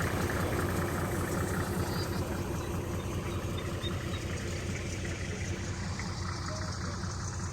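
Motor vehicle engine running steadily at a constant low pitch.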